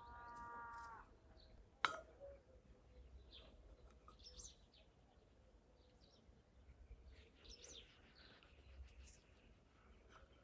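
A cat meows once, a single call of about a second, then a sharp click about two seconds in. Faint bird chirps are scattered through the rest.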